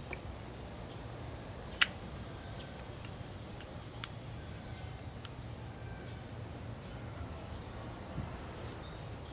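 Sharp metallic click of parts and tools being handled on a motorcycle brake caliper about two seconds in, and a softer one about four seconds in, over a steady low hum. Two quick runs of high, thin chirps, about four a second, come in the middle.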